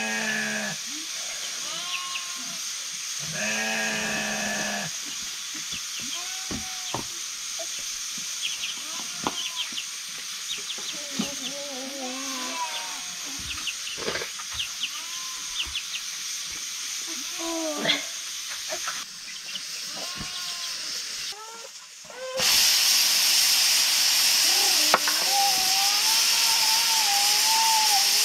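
Sheep bleating repeatedly, with scattered clicks and knocks. About three-quarters of the way in, a loud steady hiss starts and stays to the end, louder than the bleating.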